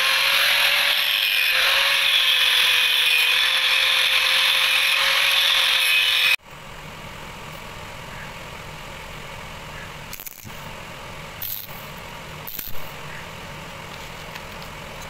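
Angle grinder cutting through a rusty steel pipe: a loud, steady motor whine over grinding noise, which cuts off suddenly about six seconds in. Then a lower steady hum with three short crackles as a stick welder's electrode strikes an arc to tack-weld a galvanized pipe joint.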